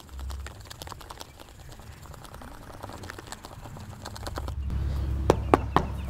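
Compact hand bike pump being worked to inflate a small riding-mower tire, giving a run of short clicks from the pump strokes. A low rumble comes in during the second half.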